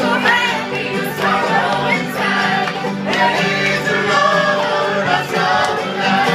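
Live bluegrass string band jamming: several voices singing together over fiddles, mandolins, banjo, acoustic guitars and upright bass.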